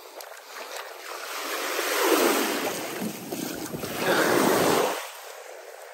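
Shallow surf washing over the sand at the water's edge, with wind on the microphone. The rush of water swells up twice, the second time ending abruptly.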